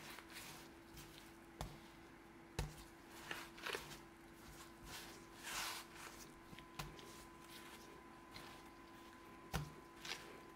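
Faint handling sounds: a few light knocks, two of them sharper, and soft swishing rustles, over a steady low hum.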